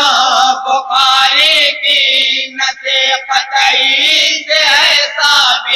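Male reciters of an anjuman chanting an Urdu naat, a devotional poem in praise of the Prophet, in a slow melodic line with no instruments, amplified through stage microphones.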